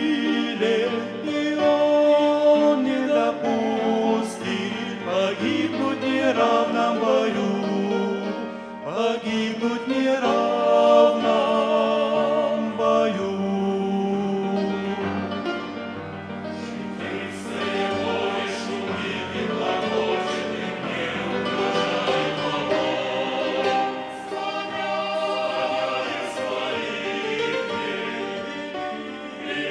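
Church choir singing a hymn, several voices sounding together in chords.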